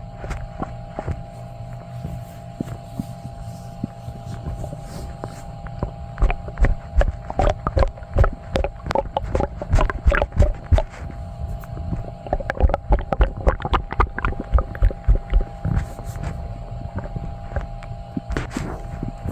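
Human stomach gurgling and sloshing, recorded close up, as it digests milk and cheesy food: a dense run of quick low gurgles and pops through the middle, over a steady hum.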